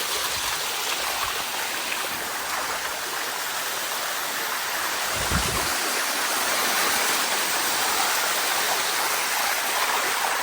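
Waterfall water running steadily down the rock, with a brief low thump about halfway through.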